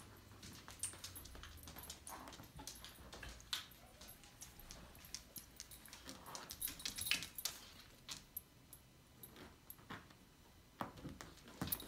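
Faint scuffling of a dog and cat at play on a parquet floor: scattered soft knocks and scrapes, with the light jingle of the dog's collar tag now and then.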